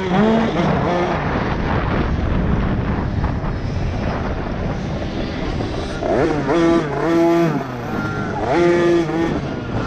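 Kids' two-stroke motocross bikes racing, a KTM 50 SX among them: the engines rev up and drop back again and again with the throttle. The rises and falls are sharpest and loudest in the last few seconds.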